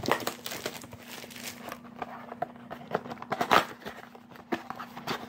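Crinkling, rustling and tearing of a trading-card blaster box's packaging being opened by hand, with irregular crackles throughout and the loudest rip about three and a half seconds in.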